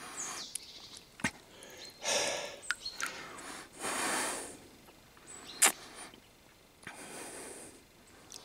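A person sucking water through a personal water-filter straw from a puddle, with three heavy breaths through the nose between sips and a few sharp clicks and slurps; one click just past halfway is the loudest sound.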